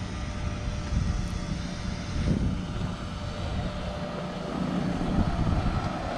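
A car engine running with a steady low rumble, growing a little louder in the second half.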